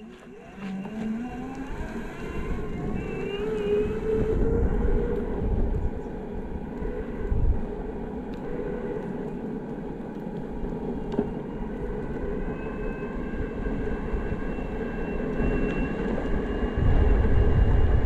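Backfire Zealot electric skateboard setting off and speeding up: its motor whine rises in pitch over the first few seconds, then runs steadily over a low rumble of wheels and wind. The rumble grows louder near the end.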